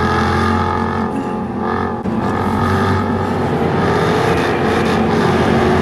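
Jaguar XKR-S's 5.0-litre V8 running hard through its active-valve exhaust on a race track. The note changes and dips briefly about two seconds in, then carries on at a high level.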